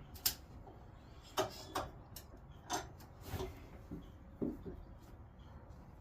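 About six irregular light knocks and clicks, spaced unevenly, from wood and tools being handled during woodworking.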